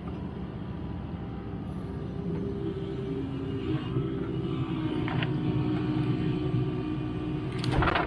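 Excavator engine running steadily with a shifting hydraulic whine as it works. A loud metallic clank comes near the end.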